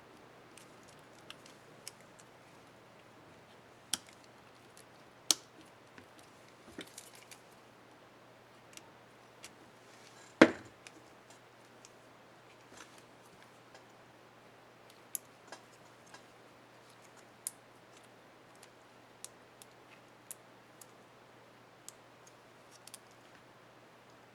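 Small plastic clicks and taps from a laptop keycap and its retainer clips being handled and fitted on an Acer Aspire One 725 keyboard, irregular and spread throughout. One sharp snap about halfway through is much louder than the rest, over a faint steady hum.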